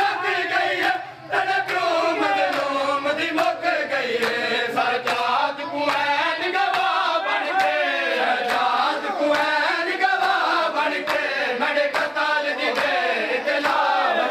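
A group of men chanting a noha, a Muharram lament, together, over a steady beat of chest-beating (matam) slaps, a little under two a second.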